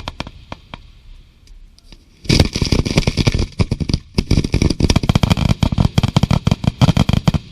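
Fireworks going off: a few scattered pops, then about two seconds in a loud, rapid run of sharp crackling bangs, many a second, for about five seconds.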